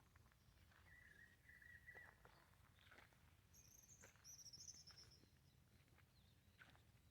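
Faint birdsong: a short warbling phrase about a second in, then a higher, quicker chirping phrase near the middle, with a few faint ticks between.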